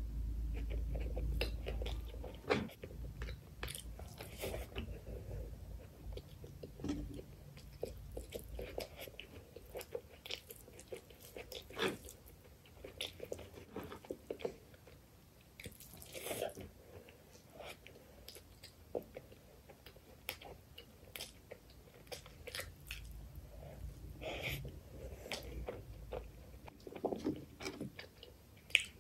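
Close-miked chewing and wet mouth sounds of a mouthful of chicken liver curry and rice, with many scattered short clicks. A low rumble sounds in the first couple of seconds.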